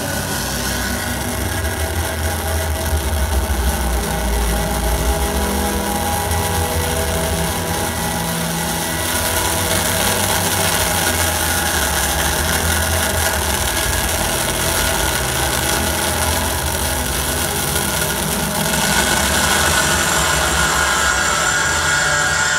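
Live harsh noise music from a laptop, mixer and effects pedals played through a PA speaker: a dense wall of low rumble and hiss with held tones. The high hiss brightens about nine seconds in, and the sound shifts again a few seconds before the end.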